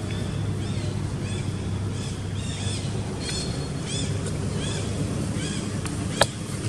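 Short chirping bird calls, repeated about twice a second, over a steady low engine hum, with one sharp click near the end.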